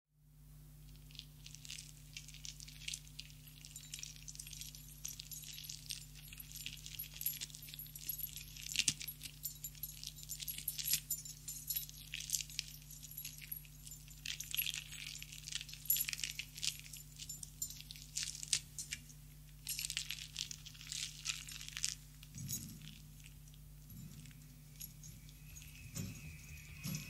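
Metallic jangling and clinking in irregular flurries over a steady electric hum, the quiet noise opening of a lo-fi noise-rock demo track; a few low dull thuds come in near the end.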